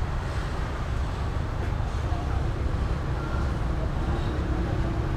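Steady low rumble of background noise, with faint voices in the background.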